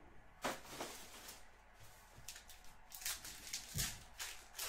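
Foil wrapper of a Panini XR football card pack crinkling as it is handled and torn open. Irregular crackles, with sharper ones about half a second in and again around three to four seconds in.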